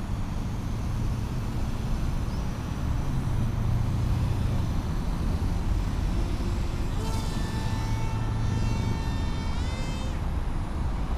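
Steady low rumble of distant road traffic. About seven seconds in, a pitched whine joins for around three seconds and rises in pitch just before it stops.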